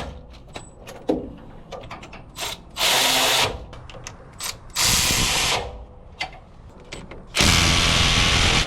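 A power tool runs in three bursts of about a second each, with sharp clicks of tools and metal parts between them. It is driving in the bolts that hold a new rear wheel hub.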